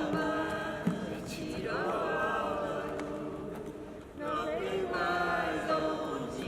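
Several voices singing together as a group, holding long notes that bend in pitch, with a short break about four seconds in.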